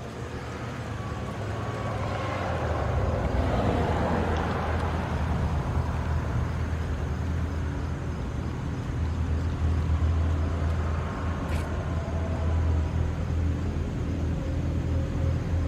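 ASC Tempest T-121 eight-port omnidirectional mechanical siren winding down, its faint tone slowly falling in pitch as the rotor coasts to a stop after the full-alert test. Under it is a steady low rumble, and a vehicle swells past about three to five seconds in.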